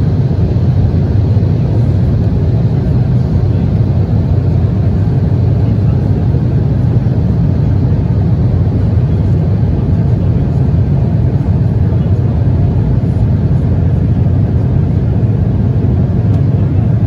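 Steady drone of an Embraer E190 airliner heard from inside the passenger cabin: the noise of its CF34 turbofan engines and the airflow, strongest in the low range, with a faint steady high whine and no change in pitch or loudness.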